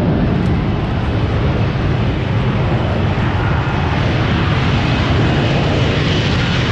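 Jet aircraft engine noise, a loud, steady rumble with no clear pitch, and a brighter hiss building from about four seconds in as the jet comes closer.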